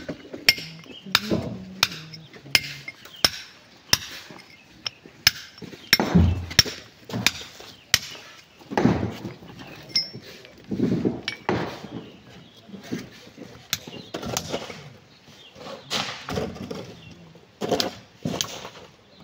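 A hammer striking rock again and again in a steady rhythm, about three blows every two seconds, each a sharp clink. Duller thuds come in between, from rock being broken up by hand.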